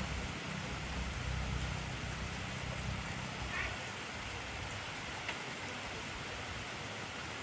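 Heavy rain falling steadily, an even hiss with a few faint drop ticks. A low rumble underneath fades out about halfway through.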